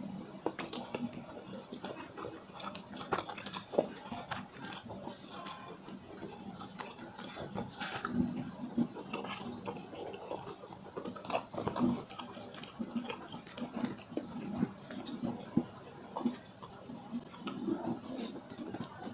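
Close-miked eating sounds: wet chewing and mouth smacking with many small clicks.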